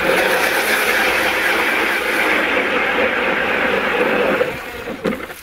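ION battery-powered electric ice auger drilling a hole through lake ice, a loud steady grinding whir. The sound falls away about four and a half seconds in as the drilling stops.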